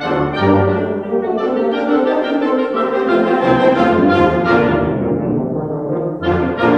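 Concert band of brass and woodwinds playing a passage together with full, sustained chords and moving lines. Near the end a phrase dies away and the next one comes in with a fresh loud attack.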